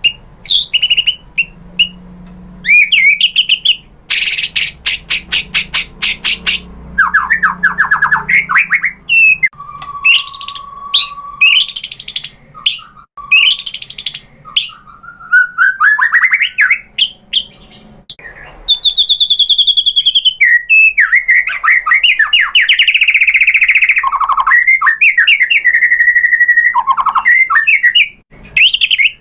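Male white-rumped shama singing: a loud, varied song of rapid chattering trills, clear whistles and rising sweeps, with a long buzzing trill about two-thirds of the way through.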